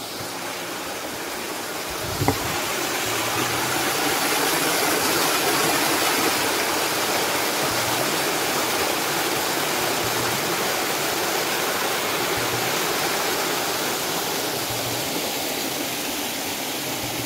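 Small waterfall pouring over rocks into a river: a steady rush of water that swells over the first few seconds and eases a little toward the end. A brief thump about two seconds in.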